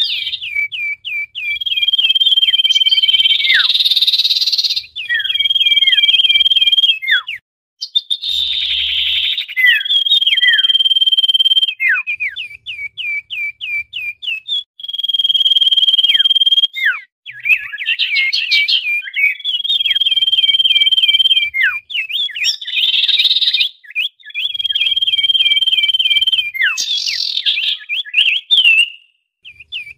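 Common iora calling busily: long, level whistled notes held about two seconds each, alternating with quick runs of chattering chips and downward-sliding notes, repeating every few seconds.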